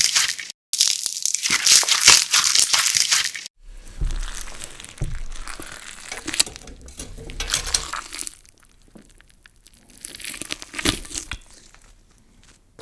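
Slime being squeezed and pressed by hand: loud, dense crackling for the first few seconds, then, after a sudden cut, quieter sticky crackles and pops with a few low thumps.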